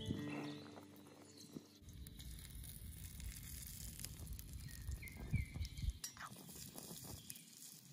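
Soft taps and light patter as small tomato pieces are handled and dropped into a miniature steel pan over a tiny wood fire, the taps bunching up about five to six seconds in. A low wind rumble on the microphone runs underneath.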